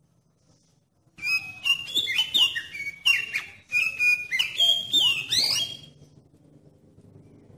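Oriental magpie-robin (kacer) singing a quick run of loud whistled notes and sweeping slurs, starting about a second in and stopping shortly before the end.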